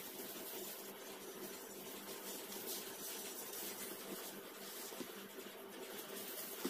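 Quiet kitchen room tone with a faint steady hum, and soft rustling of plastic food-prep gloves as hands shape and fill kibbeh dough balls.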